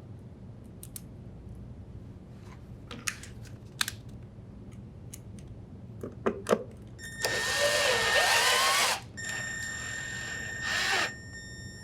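A cordless drill driver with a Phillips bit runs twice, driving in the screw that secures a refrigerator power cord's ground wire. A few light clicks of handling come first.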